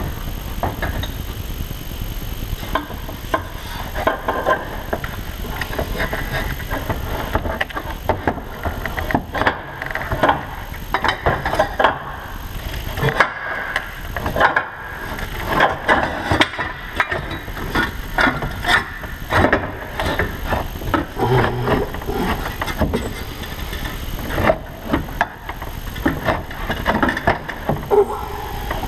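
Irregular clunks, knocks and rattles of hand work on the engine-driven cooling fan of a second-gen Dodge Cummins, as the loosened fan is worked out past the fan shroud, over a steady low rumble.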